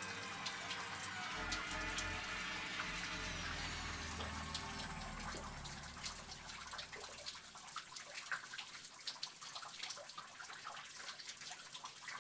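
Shallow stream water sloshing and trickling around feet wading through a rock cave passage, with many scattered drips and small splashes from about halfway through.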